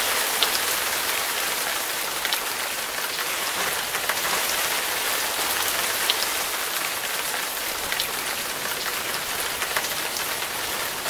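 Heavy rain pouring down: a steady hiss of falling drops, with the odd sharper drip now and then.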